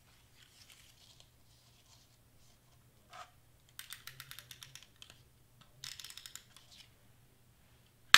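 Double-sided tape being pulled off its roll in two short crackling pulls, each about a second of rapid ticks, with a sharp click at the very end.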